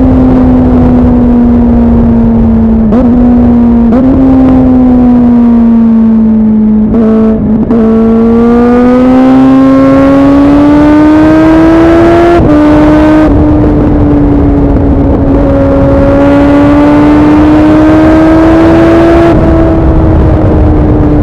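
Suzuki Bandit 650's inline-four through an aftermarket MIVV exhaust, under way and loud. The engine note falls for several seconds with a few short breaks as it comes off the throttle and shifts down, then climbs through the revs, shifts up about twelve seconds in, climbs again and eases off near the end. Wind rumble sits underneath.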